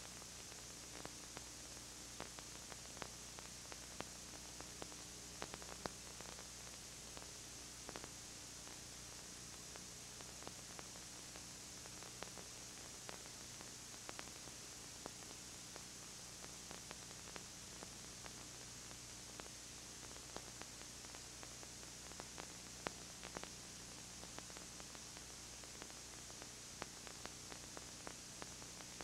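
Steady videotape hiss with a low mains hum and scattered faint clicks and crackles, the noise floor of a dubbed tape with no sound from the scene.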